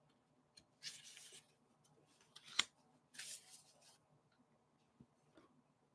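Player cards being slid and set down on a paper game board: two short rustles, about a second in and again about three seconds in, with one sharp tap between them.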